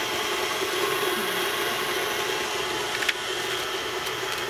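Electric stand mixer running steadily on medium speed, its beater creaming coconut oil and palm shortening. A brief click about three seconds in.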